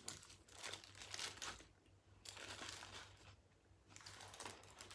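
Burger wrapper crinkling as it is unfolded, faint, in three spells with short pauses between.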